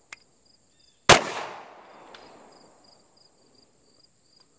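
A single 9mm pistol shot from a CZ Shadow 2 fired in single action, about a second in, its report echoing and fading over about a second and a half.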